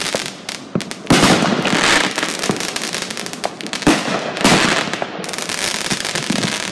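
Aerial fireworks going off overhead: sharp bangs about a second in and twice around the four-second mark, with dense crackling and popping in between.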